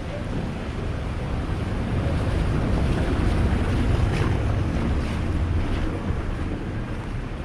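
Heavy rain and wind rushing on the microphone, a steady noisy hiss with a strong low rumble that swells in the middle and eases toward the end.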